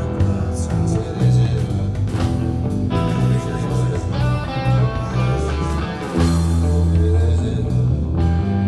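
Background rock music with electric guitar and a heavy bass line.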